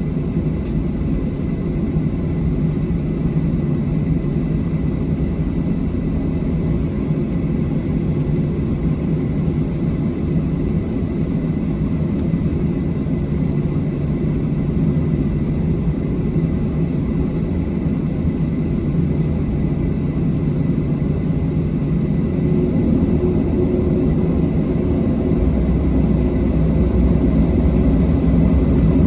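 Boeing 737-700 cabin noise: the CFM56-7B jet engines and airflow make a steady low rumble, which grows louder in the last few seconds.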